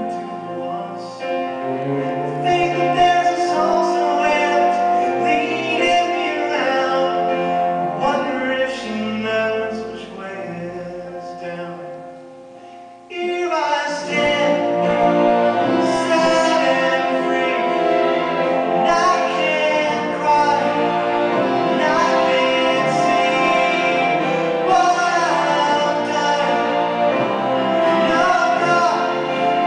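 Live symphony orchestra with a singing voice, playing a slow pop ballad. About twelve seconds in the music thins and fades, then the full orchestra comes back in strongly about a second later.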